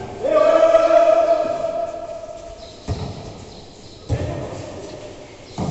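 A player's long drawn-out shout, then three thuds of a volleyball being struck or bouncing, a second or so apart, echoing in a covered court.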